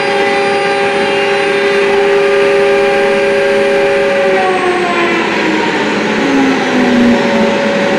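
Electric plunge router and dust extractor running together with a steady high whine. About halfway through, the router is switched off and winds down, its pitch slowly falling while the extractor keeps running.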